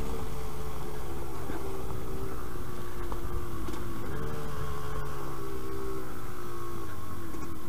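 Yamaha DT125 YPVS two-stroke single-cylinder engine running under way at fairly steady revs, its note rising about four seconds in and easing back near the end, over low wind noise on the microphone.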